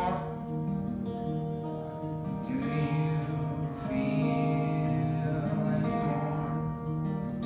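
Acoustic guitar playing a song live, with notes held and ringing and changing every second or so.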